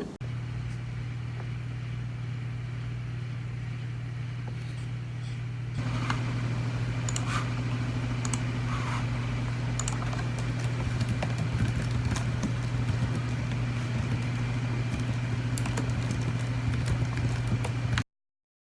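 A steady low hum that grows louder about six seconds in, with a few faint clicks over it. It cuts off suddenly near the end.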